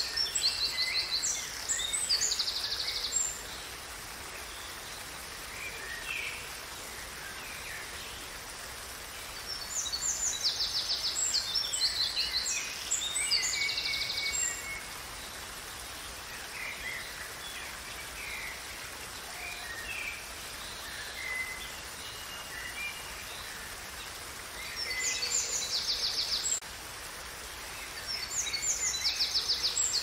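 Steady rush of a waterfall, with a songbird singing in spells of rapid trills and chirps: at the start, again from about ten to fourteen seconds in, and near the end.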